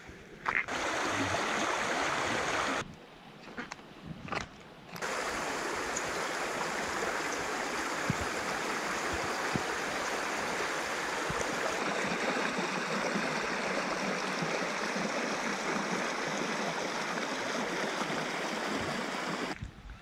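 Shallow river water running over stones, a steady rushing. About three seconds in it drops away for two seconds, leaving a few light clicks, then runs on.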